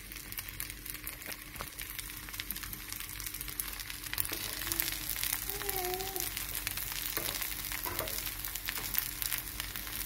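Kimchi fried rice sizzling in a nonstick frying pan with a steady hiss and frequent small crackles, as it is stirred and turned with a metal spoon.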